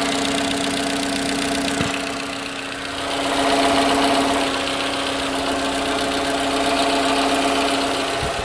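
Toyota Camry V50's 2AR-FE four-cylinder engine idling with a steady hum and a knock, with one short sharp knock about two seconds in and a brief swell a few seconds in. The owner thinks the knock sounds like a bearing on the gearbox side, possibly the transmission input shaft bearing, and has ruled out the belt tensioner and accessory drive belt.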